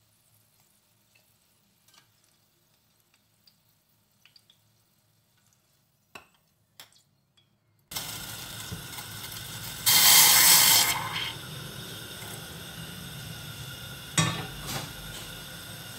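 Faint clicks of metal tongs turning pumpkin slices in a frying pan, then a steady hiss from a saucepan of water heating on a gas burner. A loud rushing burst comes about two seconds into the hiss, and a sharp metal knock near the end.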